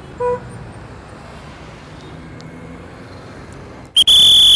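A traffic policeman's whistle gives a shrill blast of about half a second near the end, over steady street traffic. A brief low beep sounds just after the start.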